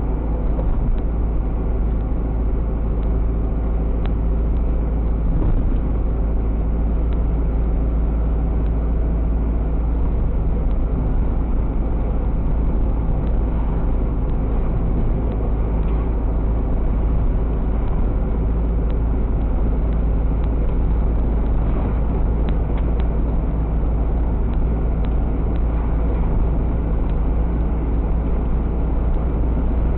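Steady low rumble of engine and road noise inside a moving vehicle's cab, with an even engine hum throughout.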